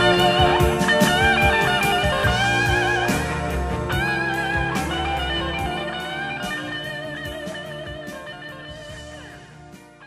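Band music fading out at the end of the song: a sustained electric guitar lead with wide vibrato over drums and bass, the whole mix dropping steadily in volume.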